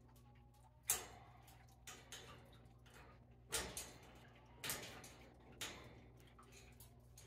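Faint, scattered sharp clicks and taps, about six of them at uneven gaps, over a low steady hum.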